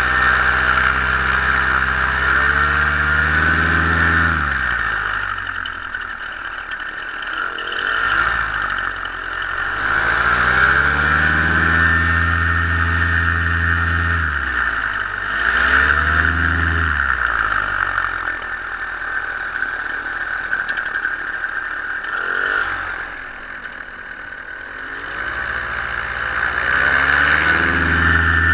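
Solo 210 single-cylinder two-stroke paramotor engine being run up by hand throttle. It is held at high revs, dropped back toward idle and opened up again several times, with a longer spell at low revs late on before it climbs again near the end.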